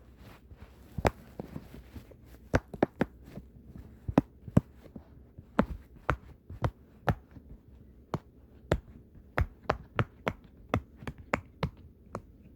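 Silicone Among Us Pop It fidget toy having its bubbles pressed one after another, giving a series of sharp pops at an uneven pace of about two to three a second.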